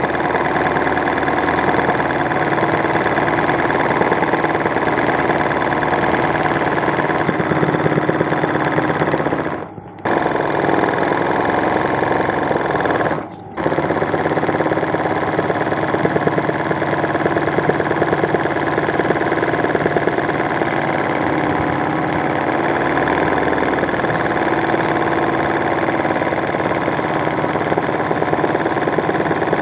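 Sewing machine doing hand-guided embroidery with gold metallic thread, running fast and steady with a rapid needle rhythm. It drops off briefly twice, about ten seconds in and again a few seconds later.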